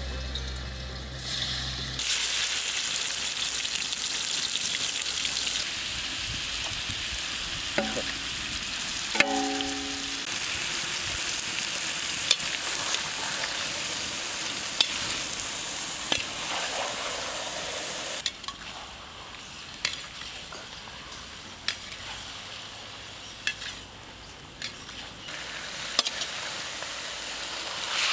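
Marinated chicken pieces sizzling as they fry in a large metal kadai, with scattered sharp clicks. The sizzle turns quieter about two-thirds of the way through, and the clicks stand out more after that.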